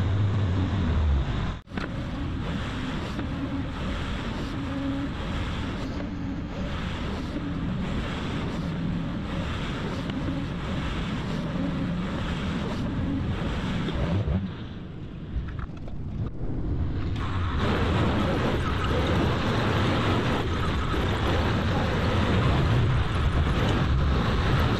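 Diesel engines of heavy earthmoving machines, a crawler dozer and an excavator, running steadily under load. The sound breaks off briefly about two seconds in and dips for a couple of seconds around the middle, where the shots change.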